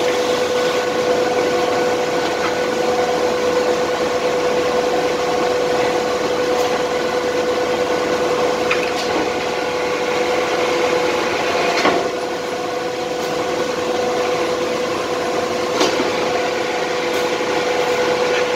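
Concrete batching plant machinery running, with its skip bucket tipped over the mixer: a steady mechanical hum carrying a constant drone, over an even rushing noise. A few light knocks come through, the sharpest about two-thirds of the way in, after which it runs slightly quieter.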